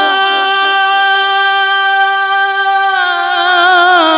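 A man singing one long held note of devotional Punjabi verse. About three seconds in the note steps slightly lower, and near the end the voice breaks into a wavering, ornamented melody.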